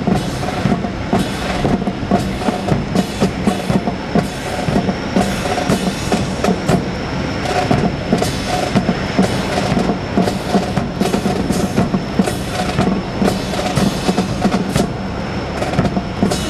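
A marching drill squad's boots striking the concrete in unison, a rhythmic clatter of about two steps a second, over a steady hum.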